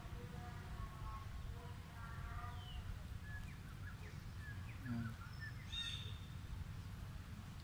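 Faint outdoor ambience: a low steady rumble with scattered short, high bird chirps, most of them in the middle of the stretch.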